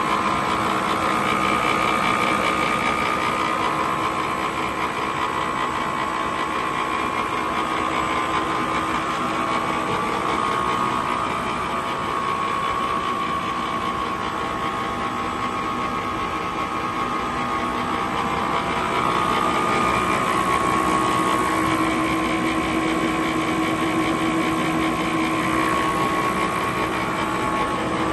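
Label slitting and rewinding machine running steadily, its motors and rollers giving a continuous whine with a few held tones as the paper web feeds through.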